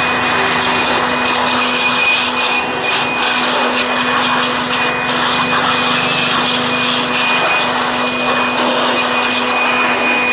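Electric air blower running at a steady speed with a high motor whine and rushing air, blowing dust out of a desktop computer cabinet.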